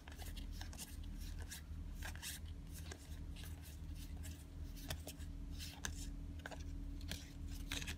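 Stack of Digimon trading cards flicked through one at a time in the hands: quiet, irregular snaps and slides of card edges, several a second, over a steady low hum.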